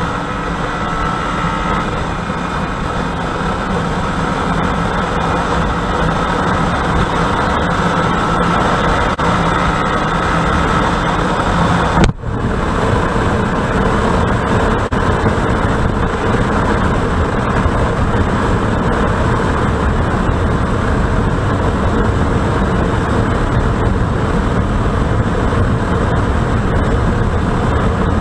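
Honda SP125's single-cylinder engine running flat out at highway speed, with strong wind rush on the microphone. About twelve seconds in there is a short sudden break, after which the engine and wind run on steadily near the bike's top speed of about 107 km/h.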